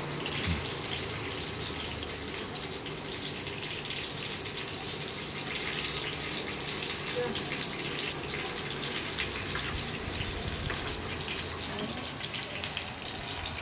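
Food frying in oil in a stainless steel pot on an induction cooktop: a steady sizzle with fine crackling.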